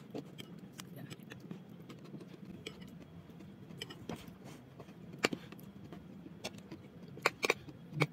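Metal spoon clinking against a stainless steel bowl while scooping thick eggplant dip: a few sharp, spaced-out clicks over a faint low hum, the loudest about five seconds in and twice near the end.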